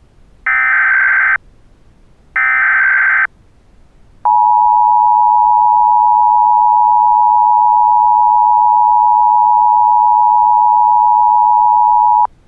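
Emergency Alert System tones: two one-second bursts of SAME header data, a harsh buzzing screech about a second apart, followed by the EAS two-tone attention signal, a steady loud dual-tone beep that holds for about eight seconds and cuts off near the end.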